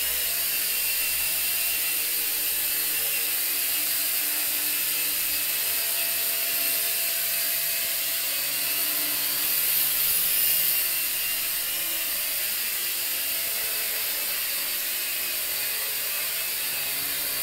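Small quadcopter's four electric motors and propellers whirring steadily as it flies, with a brief swell a little past halfway.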